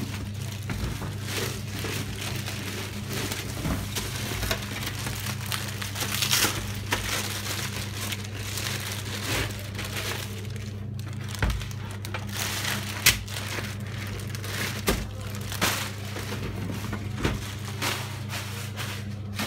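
Plastic packaging bag crinkling and rustling as it is handled and pulled off the card printer, with scattered knocks and one sharp click about two-thirds of the way through. A steady low hum runs underneath.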